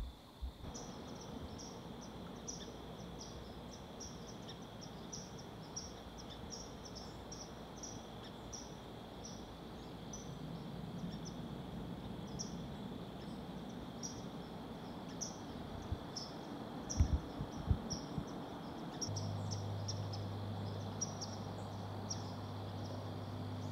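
Quiet dusk ambience over a swamp: an insect chirping steadily, about three short high chirps a second, over a faint hiss. A low steady hum comes in near the end.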